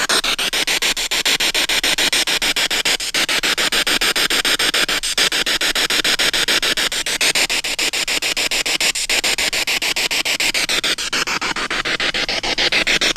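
Ghost-hunting spirit box sweeping through the radio band: a loud hiss of static chopped into rapid, even pulses as it jumps from one frequency to the next.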